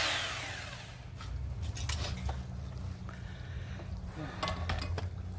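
A power tool used to chip plaster off a wall winds down with a falling whine, then scattered light clinks and knocks of tool and debris over a low steady hum.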